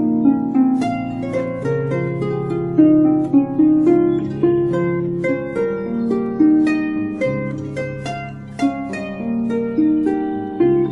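Calm, slow plucked-string music: a melody of plucked notes ringing over longer held low notes, with no beat.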